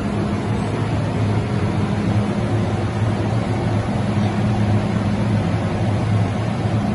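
Steady hum and rumble of an MTR train standing at the platform with its doors open, a low drone over an even wash of station noise.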